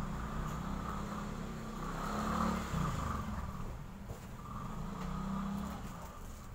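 Electric hair clipper running with a steady motor buzz that swells and fades a little as it is handled.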